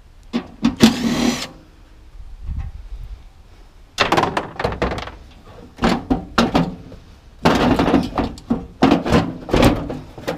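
A cordless drill runs in two short bursts about a second in, backing fasteners off a blower motor. From about four seconds on come irregular metal clanks and knocks as the sheet-metal squirrel-cage blower housing and its motor are handled and lifted.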